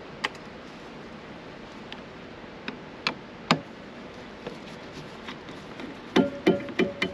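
Phillips screwdriver working the screws out of a plastic overhead console: a few scattered sharp clicks, then a quick run of about six loud ticks, roughly three a second, near the end.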